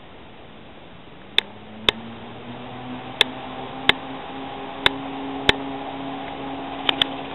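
Electric rack-railway train on the Schynige Platte line: a motor hum rises slightly in pitch from about a second and a half in, then holds steady as the train gets moving. Sharp clicks cut across it at uneven intervals, about eight in all, two close together near the end.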